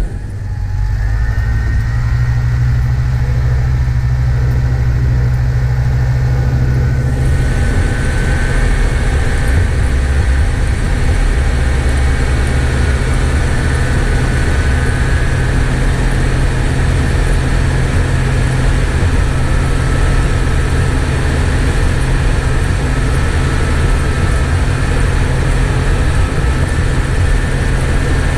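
Jeep Wrangler engine running steadily with a strong low rumble; from about seven seconds in, a steady hiss of higher sounds joins it.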